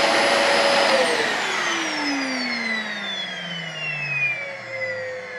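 Dyson DC40 Animal upright vacuum cleaner switched off about a second in, its motor's pitch falling steadily as it spins down. Near the end a single new tone starts and slowly sinks in pitch: the strange noise it makes after switch-off, whose cause the owner doesn't know.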